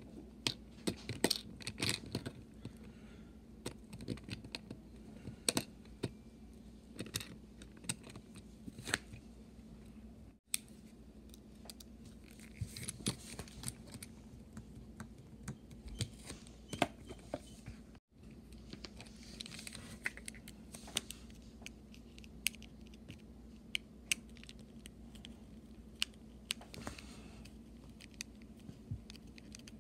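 Small metal screwdriver clicking and scraping in the screw heads of a plastic toy train chassis, with irregular ticks and rattles as the small plastic parts are handled.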